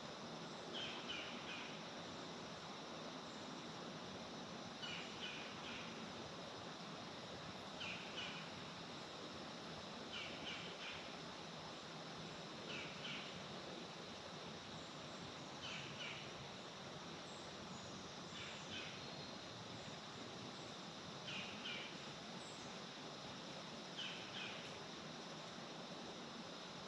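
Faint woodland ambience: a bird gives short clusters of high chirps roughly every three seconds over a steady low hiss.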